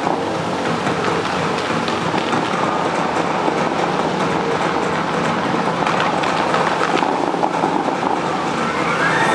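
The Dubai Fountain's water jets spraying and falling back onto the lake: a steady, even, rain-like hiss.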